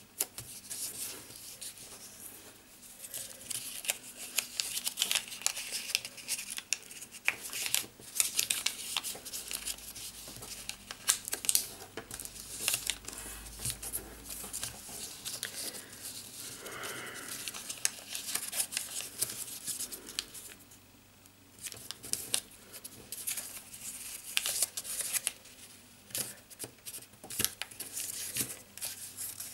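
A sheet of origami paper being folded and creased by hand against a wooden tabletop. Crisp rustling and crinkling come with sharp little snaps and scrapes as folds are pressed down, in irregular bursts, with a brief lull about twenty seconds in.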